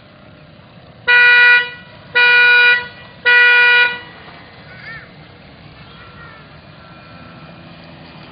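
A horn honks three times in a row, each honk about half a second long and on one steady pitch.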